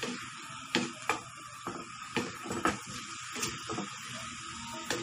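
Chicken pieces sizzling in a wok while a wooden spatula stirs them, scraping and knocking against the pan at irregular intervals about every half second.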